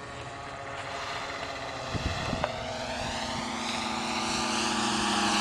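Radio-controlled twin-engine P-38 Lightning model flying past, its propeller motors droning steadily and growing louder as it approaches, with a sweeping, phasing sound.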